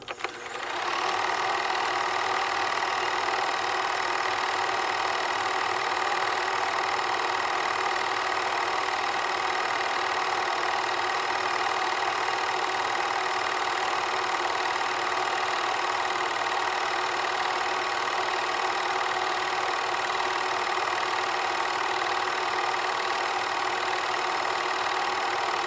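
Film projector running: a steady mechanical whir that comes up within the first second and then holds even.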